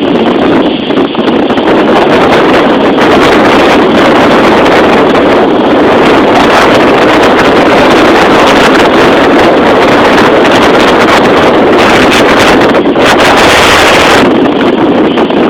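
Strong tropical-storm wind buffeting a phone's microphone over heavy surf: a loud, steady rushing noise, with a harsher, hissier gust about thirteen seconds in lasting about a second.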